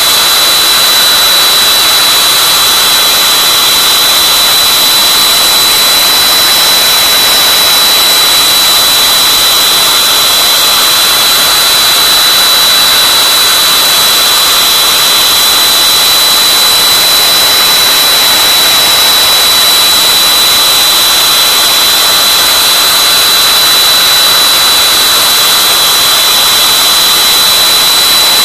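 CNC router spindle running at high speed with a steady, high-pitched whine as its bit mills a foam block, carving out a sphere.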